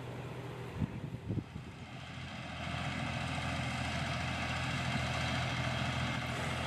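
Small narrow-gauge sugar-cane railway diesel locomotive running steadily as it approaches, its engine noise growing gradually louder from about two and a half seconds in. Two brief knocks about a second in.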